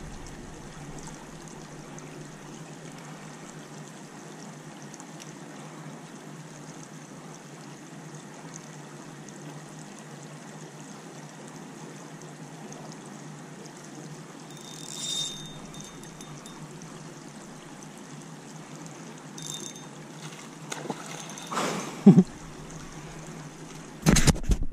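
Steady trickling and lapping water, with a few brief knocks near the end, one of them sharp and loud.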